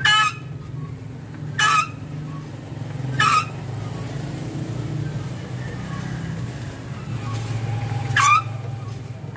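Hydraulic floor jack being pumped to lift a mini truck's front end: four short, sharp strokes from the jack, three about a second and a half apart, then one more near the end, over a steady low hum.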